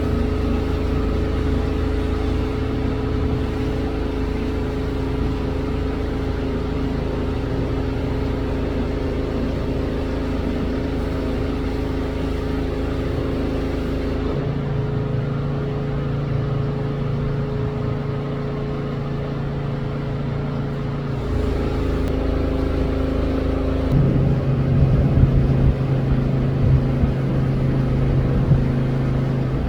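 A steady engine hum, like a car idling, that drops or shifts to a different pitch a few times.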